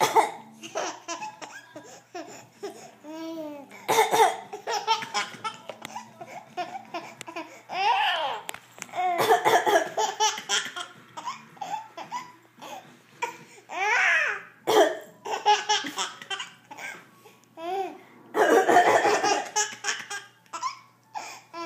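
A baby coughing in short sharp bursts, several times, amid laughter and baby babbling.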